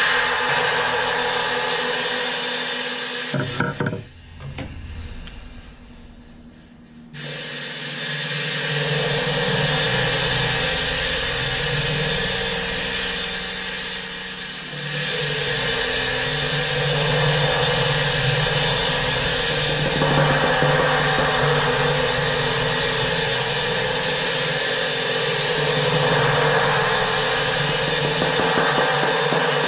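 23-inch Red Cymbals flat china cymbal ringing in a continuous dense wash. It drops away briefly about four seconds in, then swells back up under a soft mallet roll and keeps ringing.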